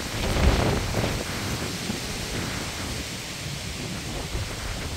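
Wind gusting through leafy trees and buffeting the microphone, rising to a stronger gust about half a second in and then settling to a steadier rush.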